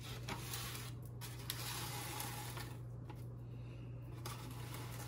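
Dried oregano shaken from a spice bottle onto a raw turkey, heard as two spells of soft hiss in the first three seconds, then a hand rubbing the seasoning into the turkey skin. A steady low hum runs underneath.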